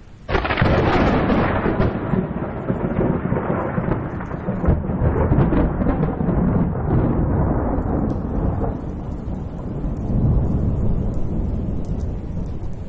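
Deep rolling rumble that starts suddenly a moment in and fades slowly over several seconds.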